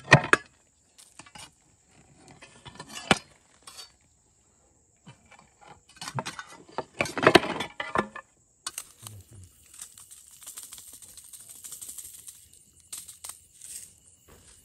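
A metal rod and trowel scrape and clink against stone slabs and earth as the slabs are levered off a covered pit oven, with a sharp clink right at the start and the loudest scraping about six to eight seconds in. After that comes a faint steady hiss with a few light clicks.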